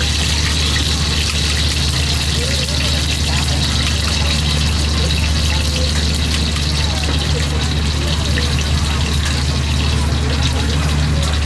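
Fork beating raw eggs in a plastic bowl, a light clicking and sloshing, over a steady low hum of background machinery and faint voices.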